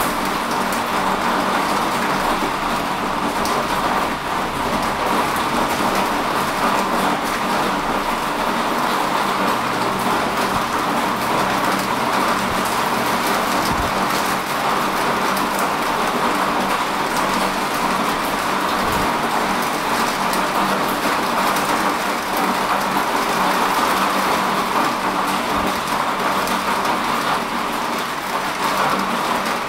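Steady rain falling, an even dense hiss, with a faint steady low hum underneath.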